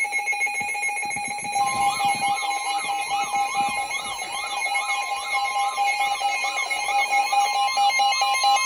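Emergency alert attention tones. A steady electronic tone is joined about a second and a half in by a warbling tone, rising and falling about twice a second, and by a second, higher steady tone.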